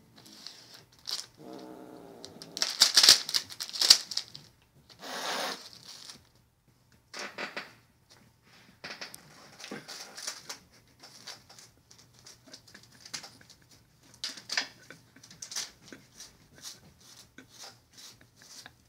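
Foil crisp packet crinkling and crackling as a cat bites and claws at it, in irregular bursts of rustling with many short sharp crackles, the loudest bursts in the first six seconds.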